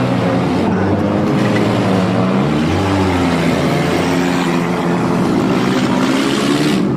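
Demolition derby cars' engines running and revving, their pitch rising and falling.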